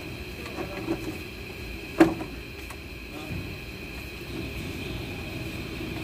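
A sharp knock about two seconds in and a few lighter knocks near the start, over a steady mechanical hum.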